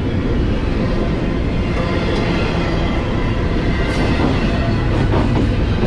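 Double-stack intermodal freight cars rolling past on steel wheels: a steady, loud rumble of wheels on rail, with a few faint clacks about four and five seconds in.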